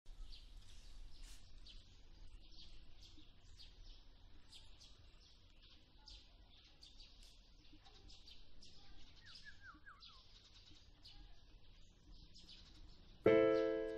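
Birds chirping in quick repeated calls, with a short run of falling whistled notes about two-thirds of the way through. Near the end a loud music chord comes in suddenly and slowly fades.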